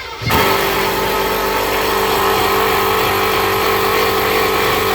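Power drill driving a screw into a wooden support board, running at a steady speed. It starts about a third of a second in.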